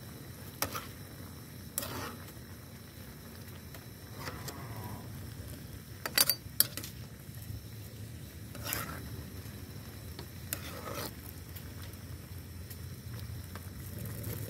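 A ladle and a metal spatula stirring mung bean stew with shrimp in a frying pan, scraping and clinking against the pan again and again, the loudest clinks about six seconds in, over the steady low sound of the simmering stew.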